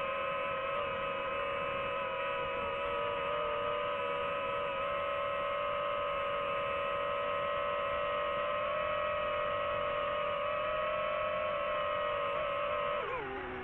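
DJI FPV drone's motors and propellers whining steadily while it hovers. Near the end the pitch drops briefly, then jumps back up.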